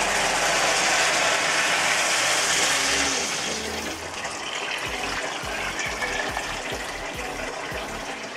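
Water poured from a jug into a large stainless-steel pot of browned lamb bones and vegetables, a steady gushing splash as the pot fills with the liquid for a dark stock. The pour is loudest for the first four seconds, then drops to a softer splashing and trickling.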